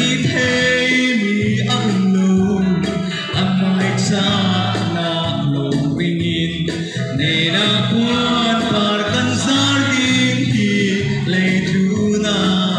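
A young man singing a song into a handheld microphone, amplified, over instrumental accompaniment with guitar and sustained bass notes.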